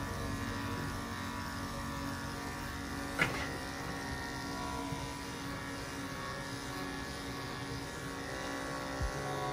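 Steady buzz of corded electric dog clippers working through a dog's coat, under background music with sustained plucked-string tones. A single sharp click about three seconds in.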